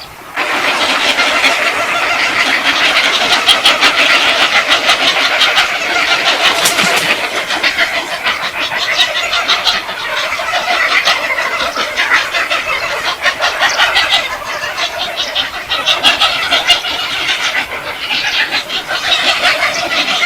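A large flock of birds calling noisily all at once, a dense, continuous chatter of overlapping squawks that starts abruptly.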